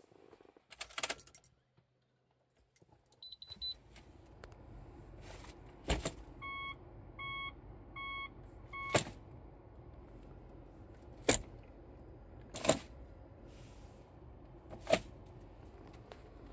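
Inside a Subaru Legacy, keys jangle and a short beep sounds, then a steady low hum sets in. The gate-type 5-speed automatic shift lever clicks sharply into position five times. Between the first two clicks, a cabin chime beeps four times at an even pace.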